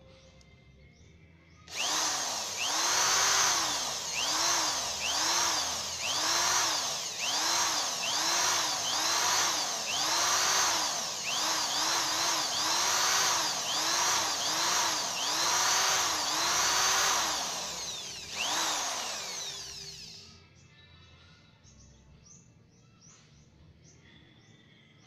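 Electric drill boring at a broken exhaust stud in a motorcycle cylinder head. Its motor whines up and sags again about once every three-quarters of a second for some sixteen seconds, then gives a short last burst before winding down.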